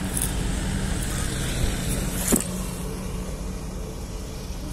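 Rally vehicle engine running steadily with a low hum, slowly fading as it draws away. One sharp click is heard about two seconds in.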